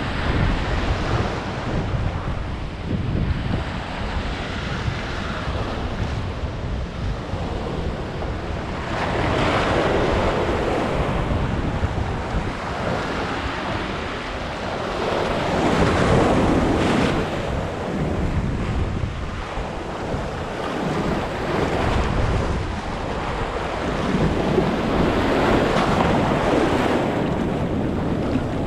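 Ocean surf breaking and foaming whitewater washing around a rock jetty, swelling louder three times as waves surge through. A constant low rumble of wind buffets the action-camera microphone.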